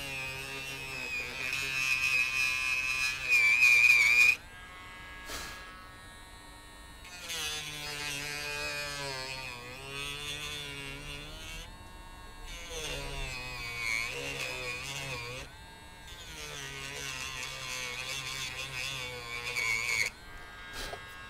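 Small cordless Dremel rotary tool, the kind sold as a pet nail grinder, running with a high whine as its burr bit cuts into a wooden gunstock. It runs in four runs with short pauses between them, and its pitch wavers as the bit bites into the wood.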